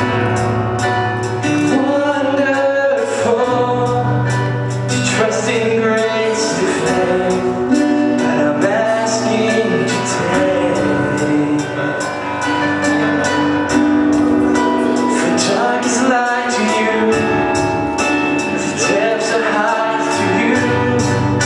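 Live gospel worship music: a man singing into a microphone over a band with a steady beat, with other voices joining in.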